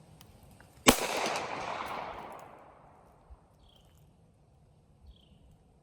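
A single Glock pistol shot about a second in, its echo rolling away over about two seconds.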